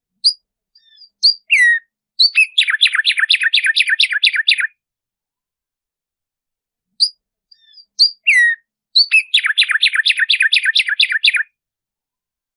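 Black-striped sparrow (tumba yegua) singing two songs. Each opens with a few high chips and a downslurred whistle, then runs into a rapid series of repeated notes, about five a second, for over two seconds.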